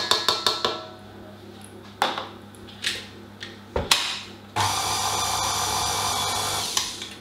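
A quick run of taps against a stainless steel mixing bowl, a few clunks as the KitchenAid stand mixer's head is handled, then the stand mixer's motor running steadily for about two seconds before it stops.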